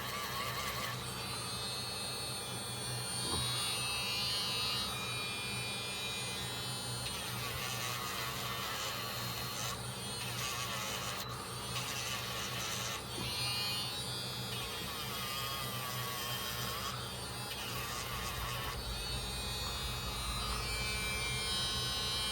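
Small handheld electric tool with a wire brush buzzing steadily, with a higher rasping scrub coming and going in stretches of a few seconds as it is worked over the rusty steel of a pocketknife blade.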